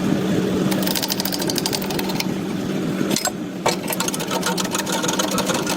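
Machine running with a steady hum, overlaid with a fast rattling clatter that starts about a second in, breaks off briefly near the middle, then resumes.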